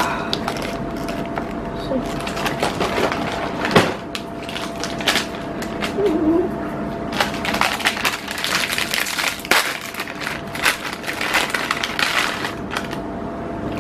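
Plastic snack wrapper crinkling and crackling in a rapid, irregular run as an individually wrapped mini cake is handled and worked open by hand.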